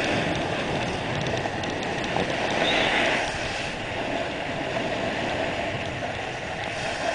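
Steady rushing hiss of skis sliding and scraping over packed snow, mixed with wind noise, swelling louder about three seconds in.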